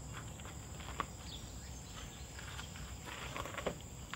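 Footsteps crunching on gravel, a cluster of steps in the second half, with a sharp click about a second in, over a steady high-pitched drone of insects.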